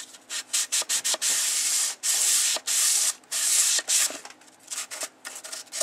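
Sandpaper rubbed by hand over a rusty steel bow saw blade, back-and-forth strokes that make a rasping hiss. The 320-grit paper is nearly worn out but still cutting. A few quick strokes come first, then several longer strokes of about half a second each, growing fainter and sparser after about four seconds.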